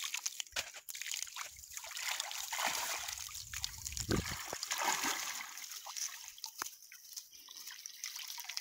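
Water trickling and dripping from a wet cast net as it is lifted and gathered in shallow river water, with light splashing and small clicks.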